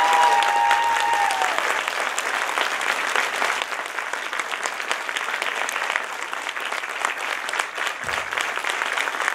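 An audience applauding, with many hands clapping steadily; the clapping eases slightly a few seconds in.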